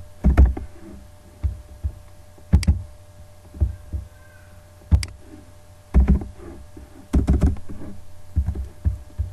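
Computer keyboard keystrokes and mouse clicks picked up close to the microphone: about a dozen separate, irregular knocks, each with a low thump, over a faint steady hum.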